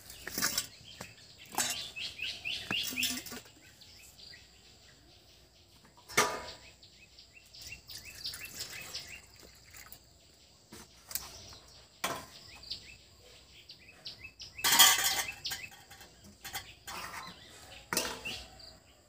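Small birds chirping in short repeated calls, with a few knocks and rustles of steel bowls and a pan being handled. The loudest is a short noisy burst about fifteen seconds in.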